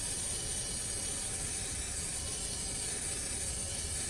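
Aerosol can of WD-40 penetrating oil spraying in one long, steady hiss onto a stuck exhaust bolt, soaking it to loosen it.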